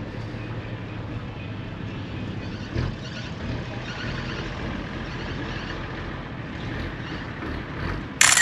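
A vehicle engine running steadily with a low hum, a single thump about three seconds in, and a sudden loud burst of hiss lasting about half a second near the end.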